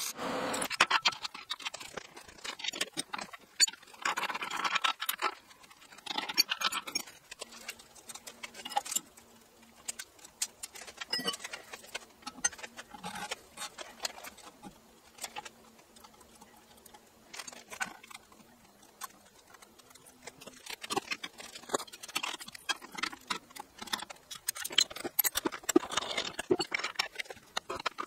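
Irregular light clicks and taps, with a faint steady hum through the middle stretch.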